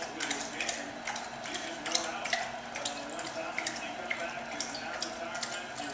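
German Shepherd dog lapping water, with quick irregular splashing laps, about three a second.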